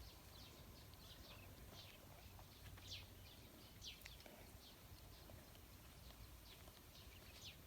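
Faint birdsong: short, high, downward-sliding chirps repeating two or three times a second over a low, faint background rumble.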